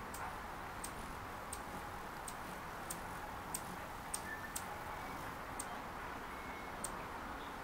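A series of short, sharp, high-pitched ticks, about one every two-thirds of a second, over a steady hiss.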